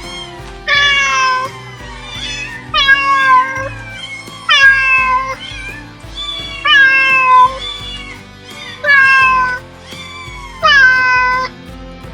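Domestic cat meowing six times, about every two seconds; each meow is drawn out for just under a second and falls in pitch at the end. Background music plays underneath.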